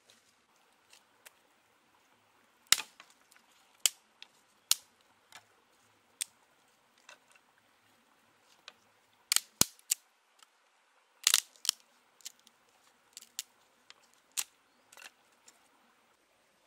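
Dry wooden sticks cracking and knocking as kindling is snapped and laid in a stone fire pit: a string of irregular sharp snaps, the loudest about three seconds in and a cluster around nine to eleven seconds.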